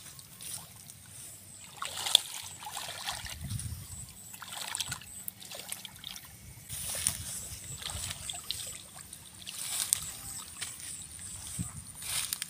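Shallow muddy water sloshing and splashing in irregular bursts as hands grope through it and the mud beneath, feeling for fish.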